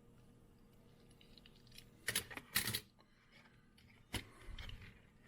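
Small die-cast metal toy cars being handled and set down: a few sharp clicks about two seconds in, then a single knock about four seconds in.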